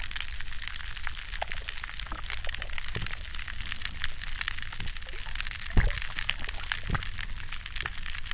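Dense, continuous crackle of many tiny clicks heard through hydrophones in shallow sea water. The recordists take it for shellfish pumping as they filter-feed at a favourable tide. Two deeper thumps come in the latter half, over a low steady rumble.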